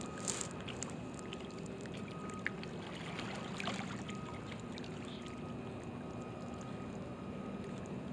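Steady outdoor ambience at the water's edge: wavelets and wind making an even wash, under a faint steady hum, with a few light ticks.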